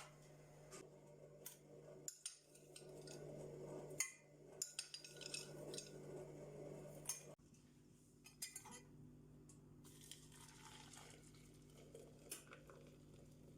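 Faint, scattered clinks of dishes and cutlery being handled, over a steady low hum.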